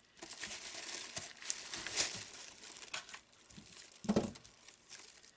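Wrapping on handmade soap bars crinkling and rustling as they are handled, busiest for the first three seconds. A brief hum of voice comes about four seconds in.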